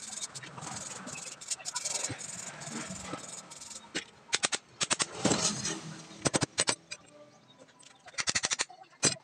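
Metal starter-motor parts being handled and set down on a workbench: light scraping at first, then a quick run of sharp metallic clicks and clatter about four seconds in, and another tight burst of clicks near the end.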